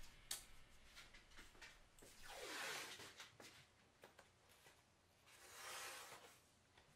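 Adhesive tape pulled off its roll in two rasping pulls, each about a second long, about three seconds apart, as it is laid along the edge of a TV backlight panel. Light handling clicks and taps come between the pulls.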